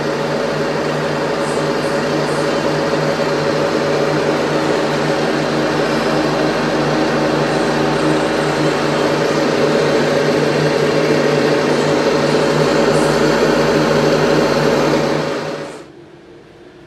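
Electric go-kart's twin brushless motors running at a steady speed: a loud, even whir with steady tones over a rushing noise, dropping away sharply near the end.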